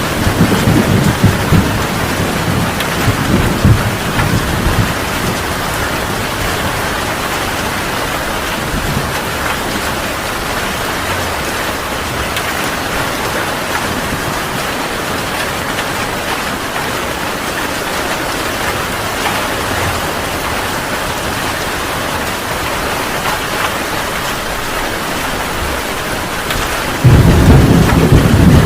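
Heavy rain pouring steadily in a thunderstorm. A thunder rumble dies away over the first few seconds, and about a second and a half before the end a loud thunder crash breaks in suddenly.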